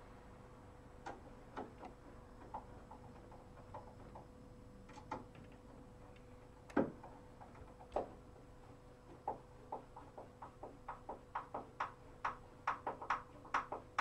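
Screwdriver turning a screw into a brass rim lock case on a wooden door: scattered faint clicks of the blade in the screw slot, with two louder clicks a little before the middle, then quickening to about three or four clicks a second as the screw is driven home.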